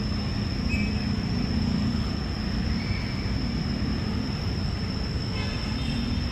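Steady outdoor city ambience: a constant low hum of road traffic, with a thin steady high-pitched tone over it throughout.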